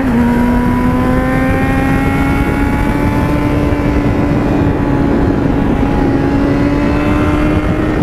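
Yamaha 600 cc inline-four motorcycle engine pulling steadily in one gear, its pitch rising slowly as the bike gains speed, over a steady rush of wind.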